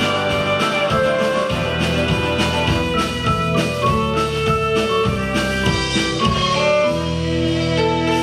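Instrumental music: a Breton tune with held melody notes over a bass line and a steady drum beat.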